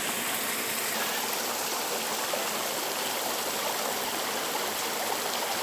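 Steady rush of flowing water, a spring-fed stream running over rocks.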